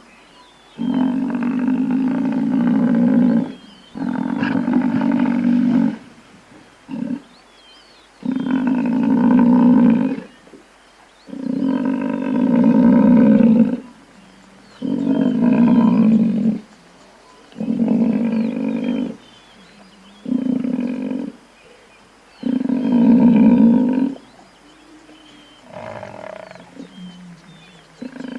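Buffalo giving a series of about ten low, drawn-out calls, each one to three seconds long with short pauses between, the last one quieter.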